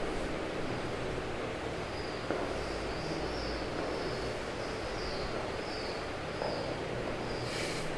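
Faint, repeated high bird chirps over a steady background hiss, with a brief sharp noise near the end.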